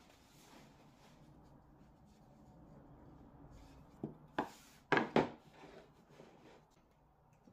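MDF board being slid and handled on a wooden workbench: quiet rubbing, then four quick knocks of the board against the bench top about four to five seconds in.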